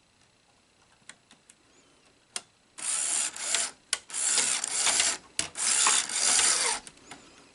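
Sony SL-HF600 Betamax VCR's tape-loading mechanism threading a cassette. A few light clicks come first, then about four seconds of loud mechanical running in three stretches with short breaks.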